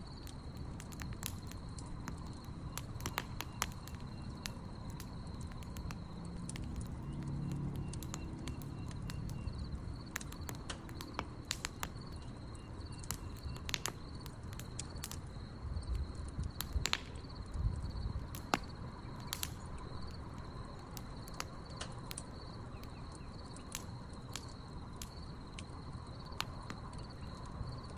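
Wood fire crackling, with sharp irregular pops from the burning logs, over a steady high chirping of crickets.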